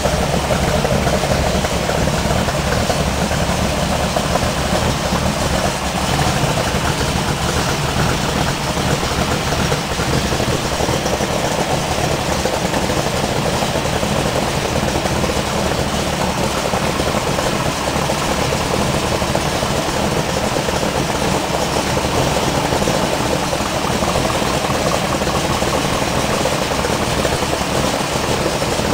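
1969 Camaro Z28's 302 DZ small-block V8, with solid lifters and chambered exhaust, idling steadily with no revs, heard from over the open engine bay.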